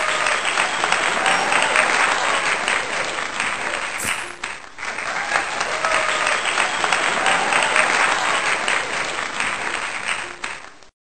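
Crowd applause sound effect, many hands clapping with some cheering. It breaks off briefly about four seconds in, starts again, and cuts off suddenly near the end.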